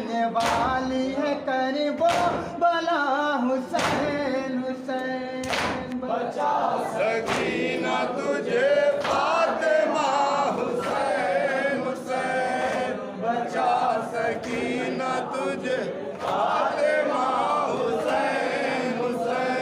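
Group of men chanting a Muharram mourning lament (noha) in unison while beating their chests in matam. The hand-on-chest strikes land together about every 1.7 seconds in the first six seconds, then grow fainter as the chanting continues.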